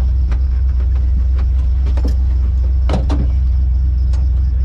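Competition winch truck's engine idling, heard from inside the cab as a loud, steady low drone. Several short, sharp clicks and rattles from the cab sound over it, the loudest a quick pair about three seconds in.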